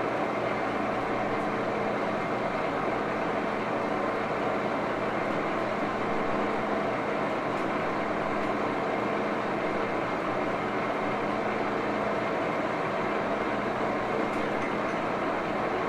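1941 Axelson gear-head engine lathe running steadily, its gearing giving a constant hum made of several steady tones over an even mechanical noise.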